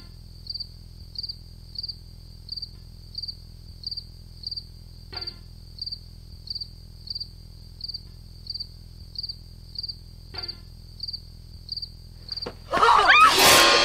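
Cricket chirping in short, evenly spaced chirps, about one and a half a second, over a low steady hum. Near the end a loud sweeping noise cuts in over it.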